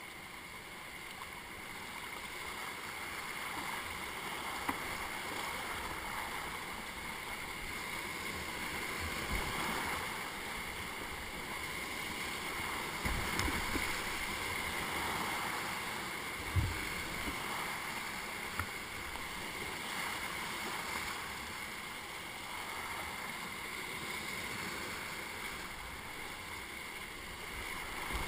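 River rapids rushing around a whitewater kayak: a steady rush of water that swells and eases, with a couple of sharp knocks from paddle strokes and water against the boat.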